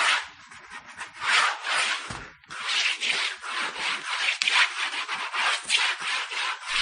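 Pencil lead scratching across paper in quick back-and-forth strokes, as in drawing or shading. It goes quieter about half a second in, pauses briefly a little after two seconds, then runs on in rapid strokes.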